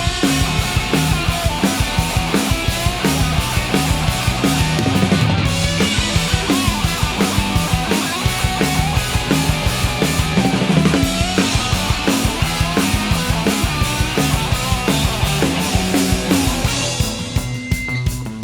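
Live blues-rock band playing an instrumental break with no singing: electric guitar lead with bent notes over a driving drum kit and bass.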